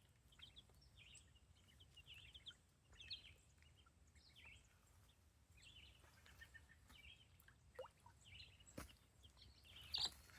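Faint, continual peeping of baby chicks and ducklings: many short high chirps overlapping, with a couple of small clicks near the end.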